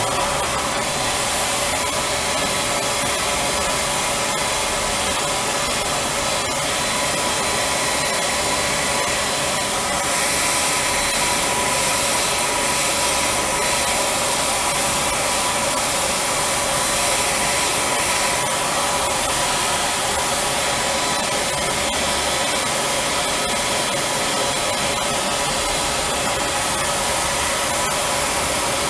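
HVLP spray tan machine running as its gun sprays tanning solution onto an arm to contour it: a steady rushing hiss of blown air with a faint high whine.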